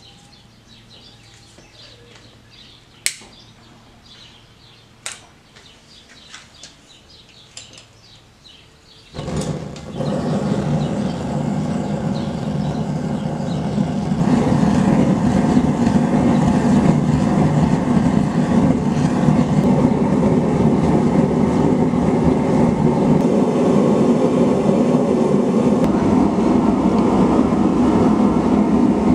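Gas forge burner lighting after a couple of sharp clicks, then running with a steady, loud rushing noise that steps up louder about five seconds after it lights.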